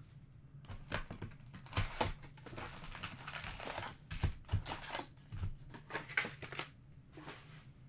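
Stiff trading cards handled by hand: an irregular run of quick clicks, taps and light rustles as a stack of cards is squared up, flipped through and set down.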